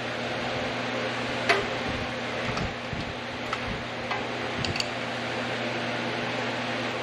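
Hand wrench clinking on bolts as they are tightened: a few sharp metal taps, the loudest about a second and a half in, over a steady hum.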